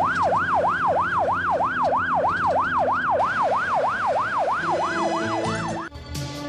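Ambulance siren in a fast electronic yelp, sweeping up and down about four times a second. Near the end it fades as music comes in, then cuts off suddenly.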